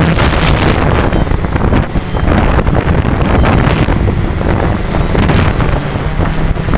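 Quadcopter's electric motors and propellers buzzing steadily with a low hum, picked up by the camera mounted on the drone, with wind buffeting the microphone.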